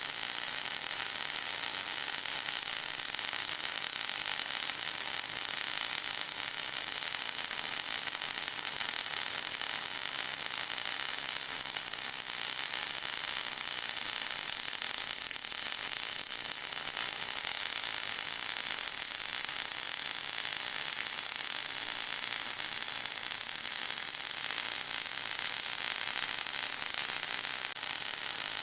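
Steady white-noise hiss, strongest in the high treble, used to mask tinnitus.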